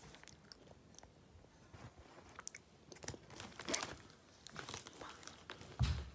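Close-up mouth sounds of someone chewing and crunching food with the mouth open: irregular wet smacks and crunches. A single low thump just before the end is the loudest sound.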